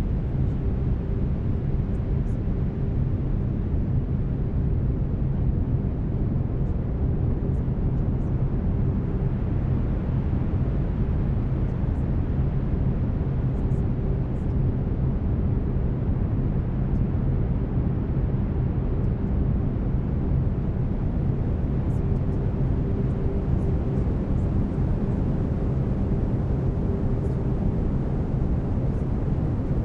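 Brown noise: a steady, deep rushing hiss, heaviest in the low end, with steady low binaural-beat tones humming underneath; a higher tone fades in and out.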